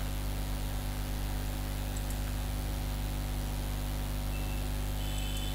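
Steady low electrical hum with a hiss over it, the background noise of the recording setup; no speech. Near the end come a couple of faint, short high tones.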